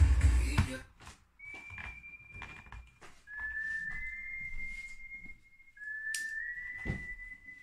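A person whistling a slow run of long, single held notes, each drifting slightly upward. Two sharp knocks come close together near the end.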